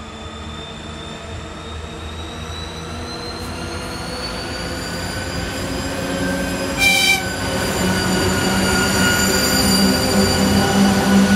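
2TE116 twin-section diesel freight locomotive pulling away under load. Its 16-cylinder diesel engines rise steadily in pitch and grow louder as it approaches and passes. A brief high toot sounds about seven seconds in.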